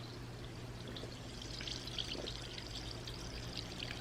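Sparkling water fizzing in a glass as it is poured: a soft, fine crackle of many tiny bursting bubbles.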